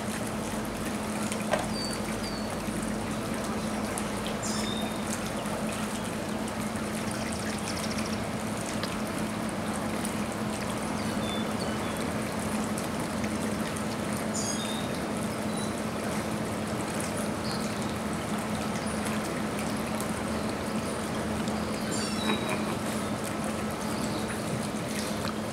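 Steady running, trickling water with a low steady hum under it, and a few short high chirps here and there.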